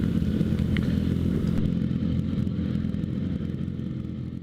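2013 Kawasaki ZX-6R inline-four running steadily through a Graves Motorsports slip-on exhaust with the dB killer removed, the sound gradually fading out.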